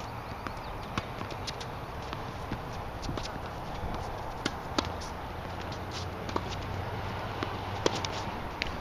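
Tennis balls being struck by rackets and bouncing on a hard court: a string of sharp pops at irregular spacing, loudest around the middle and near the end, over a steady low rumble.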